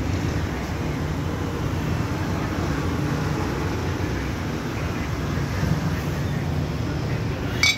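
Steady low rumble of road traffic. Near the end a few short metallic clinks.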